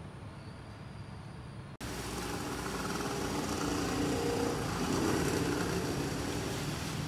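Steady outdoor background hum of distant traffic, with no clear single event. It jumps abruptly louder and fuller about two seconds in.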